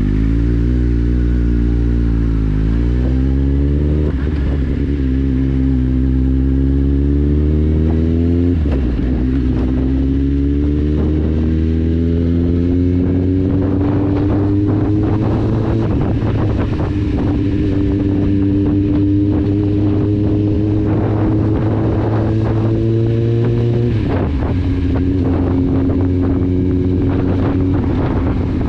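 Kawasaki Z750's 748 cc inline-four running through an Akrapovic exhaust with the dB killer removed, pulling away and working up through the gears. The engine note rises in pitch over several pulls, dropping sharply at each gear change: around four, eight and a half, sixteen and twenty-four seconds in.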